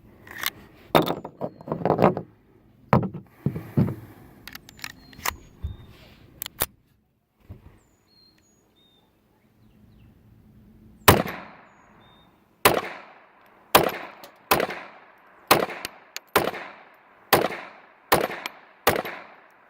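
Ruger Mark II semi-automatic pistol firing .22 LR rounds in steady rapid fire. Scattered shots come first, then a pause of a few seconds, then a string of about ten shots a little under a second apart.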